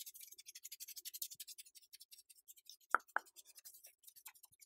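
Hands and fingers rubbing and fluttering close to the microphone: a soft, dense crackle of rapid tiny scratches, with two sharp clicks about three seconds in.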